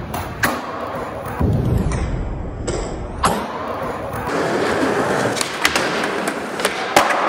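Skateboard wheels rolling on a smooth floor, broken by several sharp clacks and thuds as the board pops, lands and hits obstacles.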